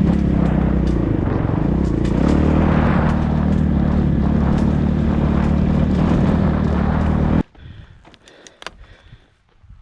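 A motor vehicle engine running at a steady speed, loud and even with almost no change in pitch, cutting off abruptly about seven and a half seconds in; a few faint clicks follow.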